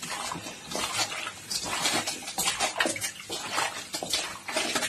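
Hands kneading and tossing raw chicken pieces with wet masala paste in a stainless steel bowl: irregular wet squelching and sloshing strokes.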